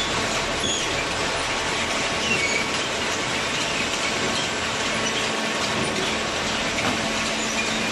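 Machinery running steadily with a dense rattling clatter and scattered short, high squeaks.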